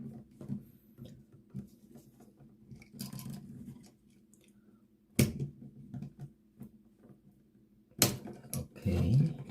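Small clicks and taps of hands working a wall toggle switch and its wiring, with two sharper knocks about five and eight seconds in.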